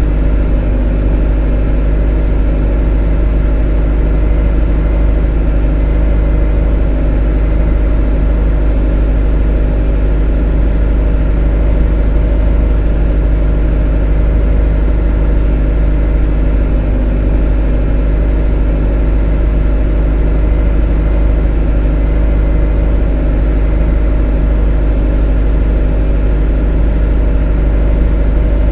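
A motor running steadily and monotonously, with a strong deep rumble under a constant drone, without change or interruption.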